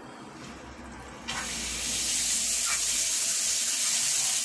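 Water from a Docol quarter-turn faucet starts gushing out about a second in as the supply valve is opened with the faucet already turned on, then runs in a steady stream into the sink.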